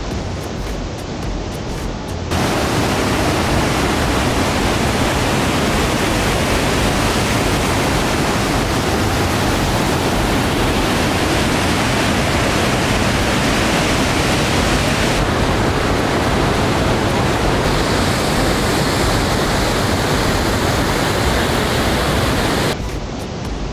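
Waterfall rushing steadily, heard close and loud. It comes in about two seconds in and cuts off just before the end.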